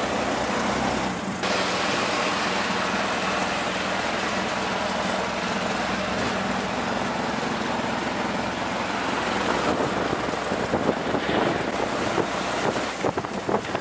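A CNG auto-rickshaw under way, heard from inside its open-sided cab: a steady small-engine hum under a broad rush of wind and road noise. A few knocks and rattles come in near the end.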